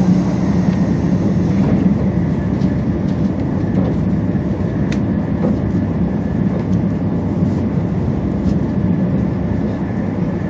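Steady running noise of a 200-series Shinkansen at speed, heard from inside the passenger car: a constant low rumble from the wheels and running gear, with a faint steady whine and a single light click about halfway through.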